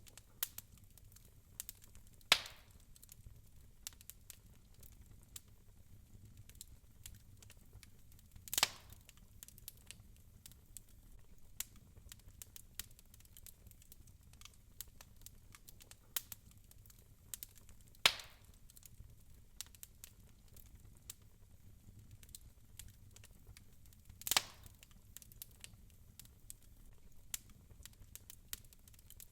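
Wood fire crackling in a fireplace: a steady scatter of small crackles with four louder sharp pops, about 2, 8, 18 and 24 seconds in.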